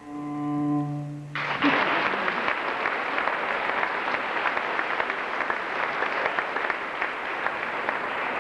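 A cello's final low bowed note is held for about a second and a half. Then applause starts suddenly and carries on steadily.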